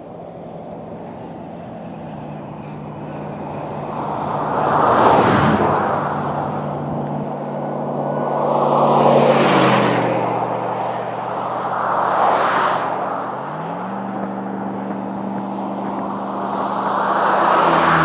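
Cars passing one after another on a highway, four pass-bys about every four seconds, each a rush of tyre and engine noise that swells and fades. A steady engine drone runs underneath, its pitch stepping up about three-quarters of the way through.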